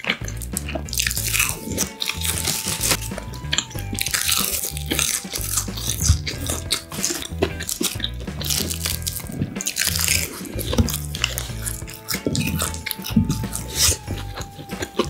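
Close-miked eating: crisp roasted seaweed (gim) wrapped around kimchi fried rice crunching and crackling in the mouth, with wet chewing between many short crisp bites.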